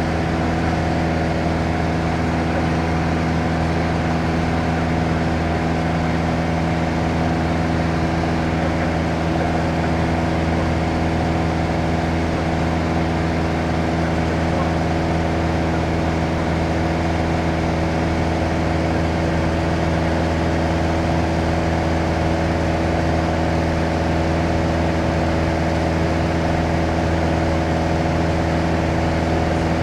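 Light touring aircraft's engine and propeller droning steadily in flight, heard from inside the cabin, with no change in power.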